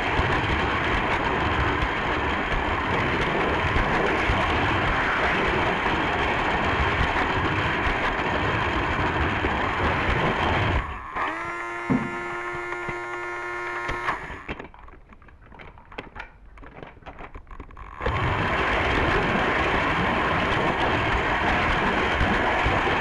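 Electric toy train set running on its track, a steady whirring rattle of motor and wheels. About eleven seconds in it turns into a pitched whine for about three seconds, then falls to a few quiet clicks, and the running noise comes back about eighteen seconds in.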